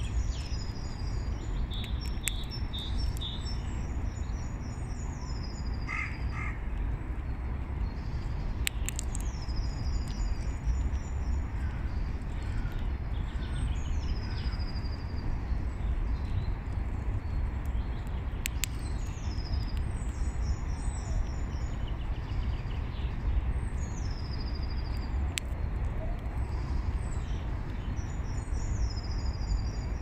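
A songbird singing the same short phrase over and over, a quick run of high notes falling in pitch, every few seconds, over a steady low background rumble. Another bird gives a brief lower call about six seconds in.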